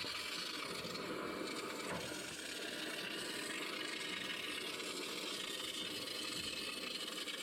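Steady hiss of a compressed-air applicator gun spraying 3M cavity wax.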